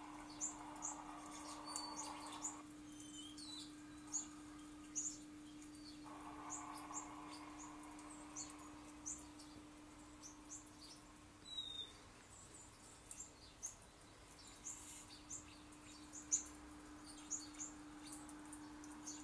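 Small birds chirping in many short, high calls, played through a laptop's speakers from a bird video for cats, over a steady low hum.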